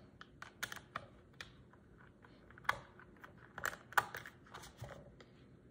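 A small flathead screwdriver backing screws out of the plastic housing of a Cra-z-Art spin art machine: irregular light clicks and ticks of metal against plastic, with a few sharper clicks past the middle.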